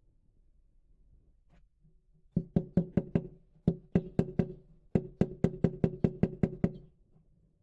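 A run of sharp knocks, about five a second, in three bursts of five, four and about ten strokes, each with a short low ringing under it.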